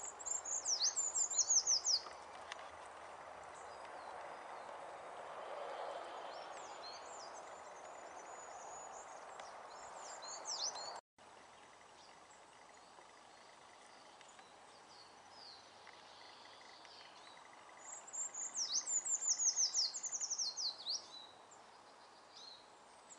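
Treecreeper singing: two high, thin songs, each a rapid run of short downward-sweeping notes lasting about two seconds, one at the start and one near the end. Fainter high chirps come between them over a steady background hiss.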